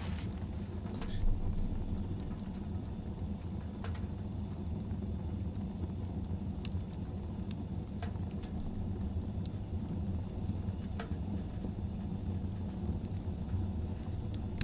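Log fire burning in a small tent wood stove: a steady low rumble with scattered crackles and pops, one louder about a second in.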